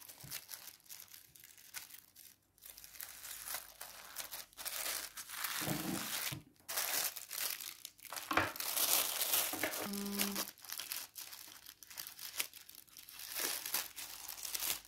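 Plastic poly mailer bag crinkling and rustling in irregular bursts as it is handled, torn and cut open with scissors.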